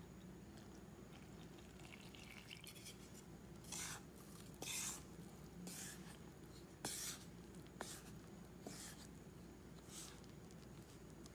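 Water poured from a glass measuring cup onto flour in a stainless steel bowl, then a wooden spatula stirring and scraping through the wet flour to mix a bread preferment. The scraping comes as a string of short strokes about a second apart. It is faint overall.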